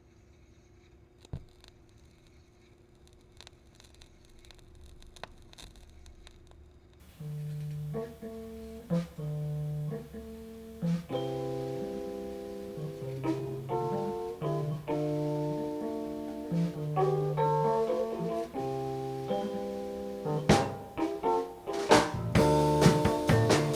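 Faint room tone with a few soft clicks for about seven seconds, then a band's song comes in: plucked guitar and keyboard notes that build, with drum hits starting near the end.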